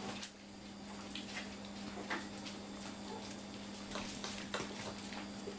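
Puppies scrambling and tugging at a towel on a tile floor: claws clicking and tapping irregularly, over a steady low hum.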